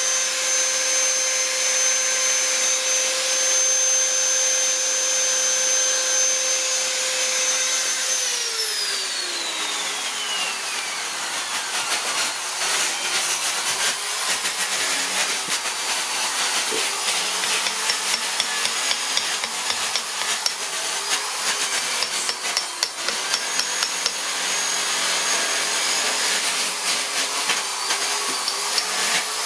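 A hand-held rotary carving tool with a cone-shaped burr whines steadily as it grinds the wood, then is switched off about a third of the way in, its pitch sliding down as it spins down. After that a carving chisel is struck into the wood in short sharp knocks, coming faster and more regularly near the end.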